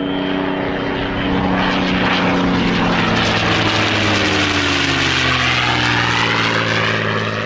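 Cinematic logo-intro sound effect: a droning, engine-like hum whose several tones slowly drop in pitch, under a rushing hiss that swells about a second in, like an aircraft passing over.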